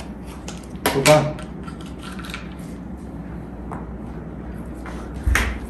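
Small clicks and knocks of the pieces of a dog's treat-puzzle toy as the dog noses and paws at it, with one louder knock near the end.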